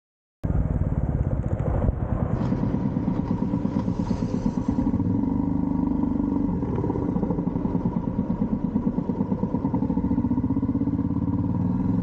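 Motorcycle engine running as the bike is ridden slowly, a steady rapid low pulsing from the exhaust. It starts abruptly about half a second in, after a brief silence.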